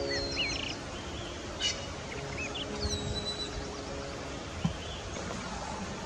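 Small birds chirping and whistling in short, high calls, busy for the first three seconds and then thinning out, over soft background music with long held notes. A single brief thump sounds about four and a half seconds in.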